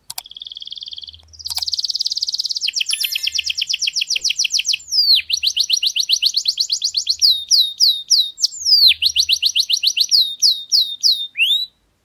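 Domestic canary singing one long song of fast trills and rolls that change every second or two, from a rapid buzzy trill into quick repeated chirps, then slower repeated downward-sweeping whistles, closing on a short rising note just before it stops.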